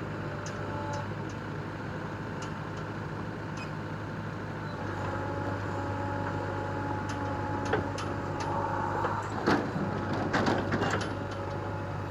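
JCB backhoe loader's diesel engine running steadily, joined partway through by a steady hydraulic whine. A run of metallic clanks and knocks comes in the second half, loudest a little before the end.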